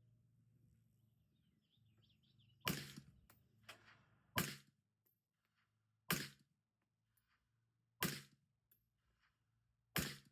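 AR-15 rifle with a CMMG ZEROED 36 suppressor firing five suppressed shots about two seconds apart, each a sharp crack with a short tail.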